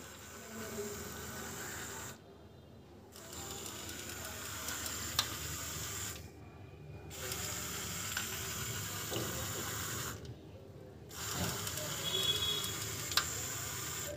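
Small DC gear motors of an Arduino obstacle-avoider robot car running with a buzzing whine. They cut out for about a second three times and then start again. Two sharp clicks come in among the running.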